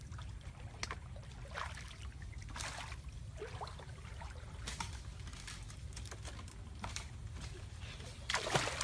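Small splashes and trickling water with scattered short knocks and rustles, as hands work in the water and grass at a stream's edge. A louder burst comes near the end.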